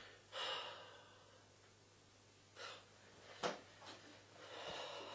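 A person's breathy exhales: one just after the start and a longer one near the end, with a couple of small clicks in between.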